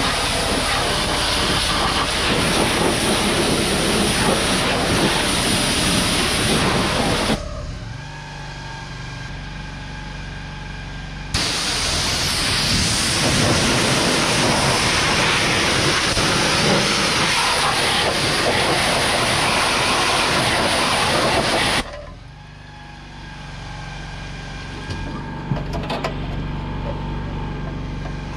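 Loud steady hissing in two long stretches, each starting and cutting off abruptly, with a steady machine hum heard in the gaps between them.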